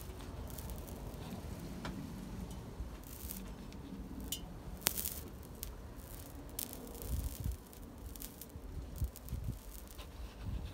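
Horsehair being laid with metal tweezers on a hot raku pot, where it burns: scattered faint clicks and ticks, with one sharper click about five seconds in and a few dull bumps in the second half.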